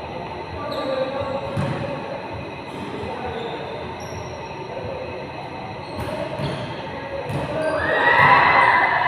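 Basketballs bouncing on an indoor gym court, a few scattered thuds in a large echoing hall, with short high sneaker squeaks and players' voices in the background. Near the end the voices rise into louder shouting.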